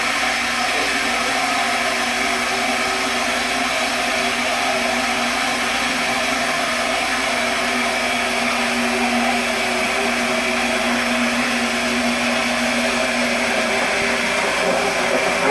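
High-speed immersion mixer running steadily at speed, its shaft churning a large vessel of white liquid: a steady motor whine made of several tones over a rushing hiss.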